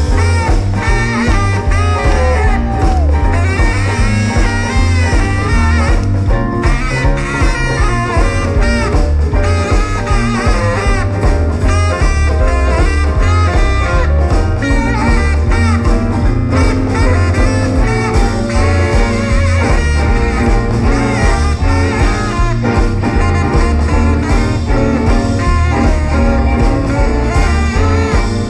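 Live western swing band playing an instrumental break, a saxophone soloing over a steady swinging beat from bass and drums.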